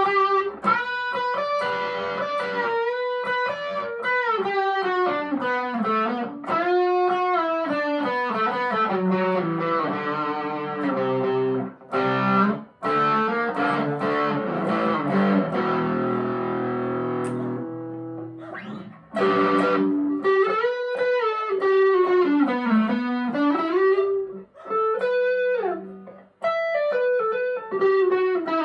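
Harley Benton ST-25th Strat-style electric guitar played through two overdrive pedals stacked together: single-note lead lines and rising and falling runs, with a stretch of sustained ringing notes about halfway through and a few brief pauses.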